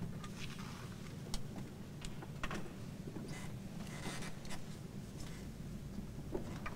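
Soft rustling and a few light clicks from a person moving about and handling a folder, over a low steady hum of the room.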